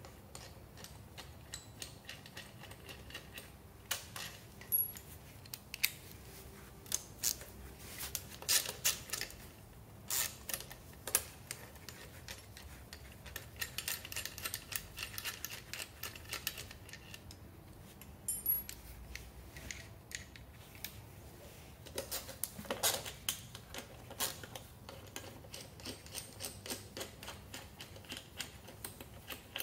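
Hand tools clicking and clinking on metal as a wrench works the bolts of a Peugeot Kisbee 4-stroke scooter engine's side cover, in irregular short clicks, some in quick runs.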